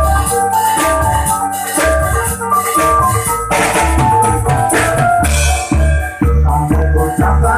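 Loud Javanese dance music with a pounding bass beat, drums and a bright melody line, with a crash about three and a half seconds in.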